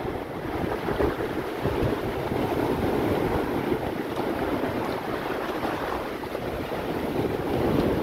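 Heavy surf breaking and washing up the beach in a steady rush, with wind buffeting the microphone. The waves are driven by a passing typhoon at high tide.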